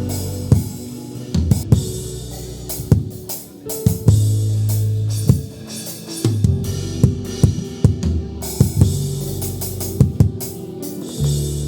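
Instrumental church music: a drum kit with kick, snare and cymbal hits played over long held bass notes and sustained chords.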